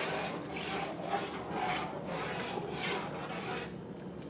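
A spoon stirring, scraping in a steady rhythm about twice a second, stopping shortly before the end.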